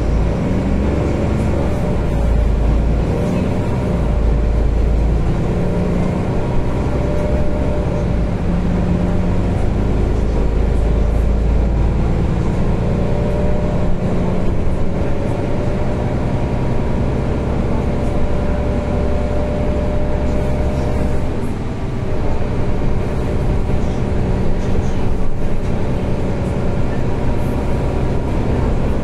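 Mercedes-Benz O530 Citaro Facelift city bus under way, heard from inside the passenger cabin: engine and drivetrain running with a steady low rumble. Its note shifts up and down as the bus changes speed.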